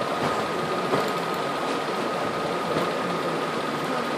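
Steady mechanical hum and hiss with a thin high whine held on one pitch, and a faint click about a second in.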